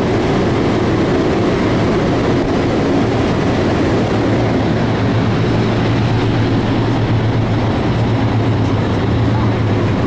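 Fast ferry under way at speed: a steady low engine drone mixed with the rush of wind and churning water. The hum grows stronger about halfway through as the higher hiss thins out.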